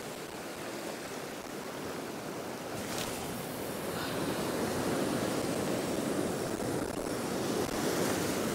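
Small sea swell washing steadily over shore rocks, a continuous surging wash that slowly builds.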